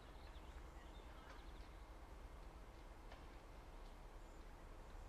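Near silence: a few faint, short bird chirps over a low steady rumble.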